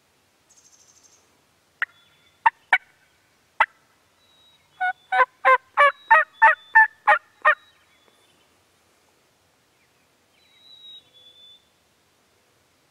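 Turkey calling: a few sharp clucks, then a loud run of about nine evenly spaced yelps, about three a second.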